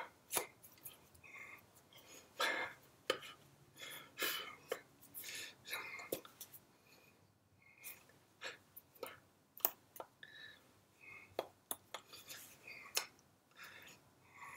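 Hands of a person signing in American Sign Language: irregular taps and slaps as the hands strike and brush against each other and the shirt, with soft breathy mouth noises between them.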